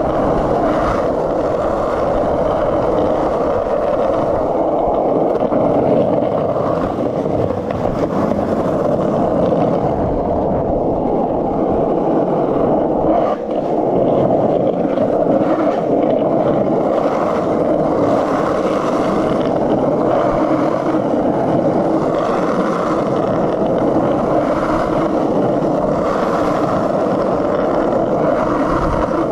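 Skateboard wheels rolling fast down rough, cracked asphalt, a steady grinding rumble with only a brief let-up about halfway through.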